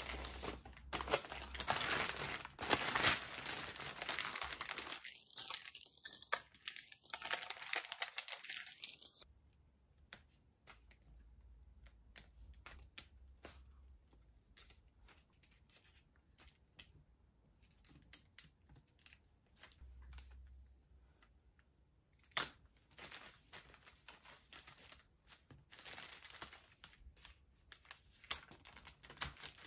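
Bouquet wrapping paper crinkling and tearing as a bunch of roses and baby's breath is unwrapped, loud and dense for the first nine seconds or so. After that come faint rustles and light clicks as the flowers are handled, with more crinkling near the end.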